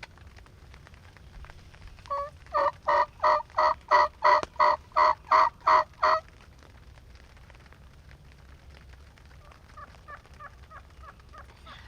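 Hen wild turkey yelping: a run of about a dozen loud, evenly spaced yelps lasting about four seconds, followed near the end by a fainter, quicker series of short calls.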